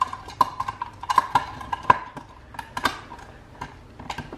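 A hard plastic PVC project box being handled on a plywood bench. It makes an irregular run of light clicks and knocks, thickest in the middle.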